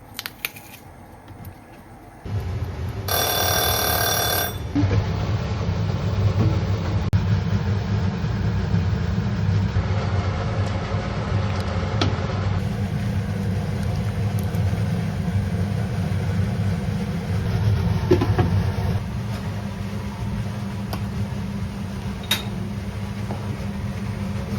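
A kitchen appliance switches on with a steady low hum that starts suddenly about two seconds in. Soon after, an electronic tone sounds for about a second and a half.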